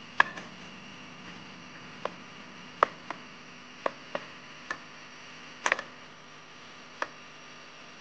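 Cooking utensils being handled while making Maggi noodles: about nine sharp, irregularly spaced taps and clicks over a steady background noise.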